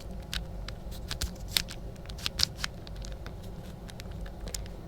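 Mini Rubik's cube being twisted in the hands: its small plastic pieces click and rub against each other in an irregular run of soft clicks, with a couple of sharper clicks near the middle.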